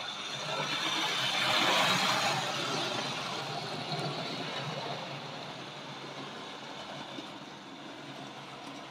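Tri-ang OO-gauge model train from the RS.37 Davy Crockett set running on the layout track: the locomotive's electric motor whirring and its wheels rattling over the rails. It grows loudest about two seconds in, then slowly fades.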